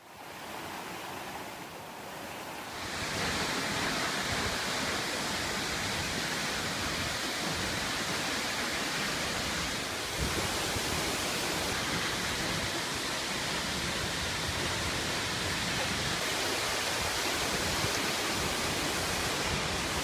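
Acquafraggia waterfall and the rocky cascading stream below it: a steady rush of falling water, which grows louder about three seconds in.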